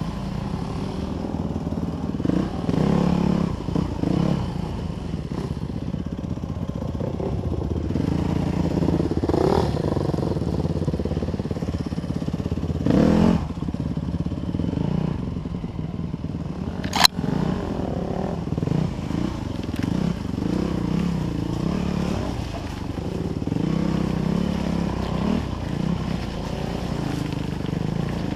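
Dirt bike engine running under way, its revs rising and falling with the throttle. There is one sharp knock a little past the middle.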